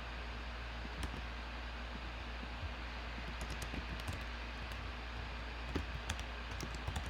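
Typing on a computer keyboard: scattered light key clicks, few at first and more frequent from about three and a half seconds in, over a steady low hum.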